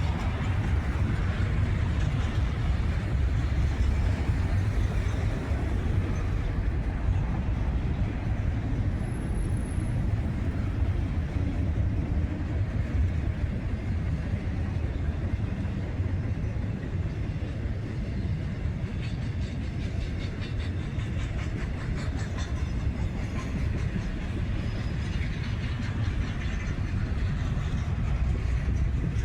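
CSX freight train rolling past with a steady low rumble of railcars. Faint repeated clicks of wheels over the rails come in the second half.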